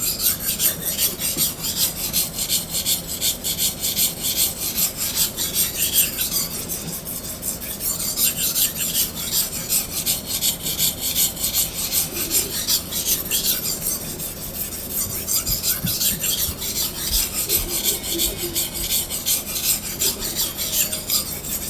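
Hard steel knife blade being stroked quickly back and forth on a coarse sharpening stone, a steady rasping at about two to three strokes a second. It is the rough stage of sharpening: grinding away steel to remove chips and form a new bevel.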